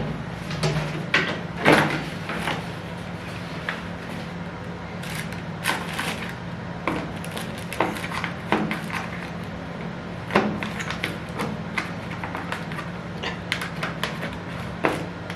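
Objects being handled: a run of irregular small clicks and knocks, with a steady low hum underneath.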